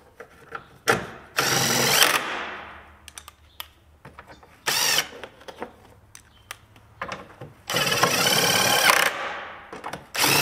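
A cordless power tool running in four short bursts, each winding down after the trigger is let go, with small tool clicks in between, as the alternator's mounting bolts are run in.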